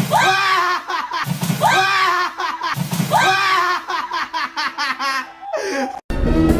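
A recorded laugh played three times over, each burst alike and about a second and a half long, with smaller repeats after; it cuts off sharply about six seconds in.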